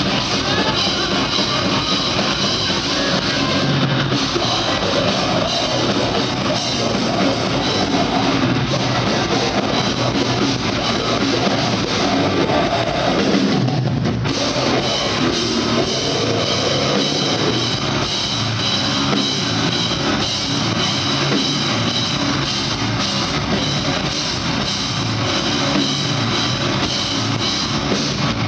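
Grindcore band playing live at full volume: distorted electric guitar and bass over fast drums and cymbals, with a momentary break in the cymbals about halfway through.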